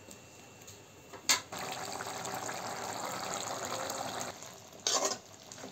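Potato and pea masala bubbling as it simmers in a kadai: about three seconds of steady watery hiss, starting just after a sharp click. A short, louder noise comes near the end.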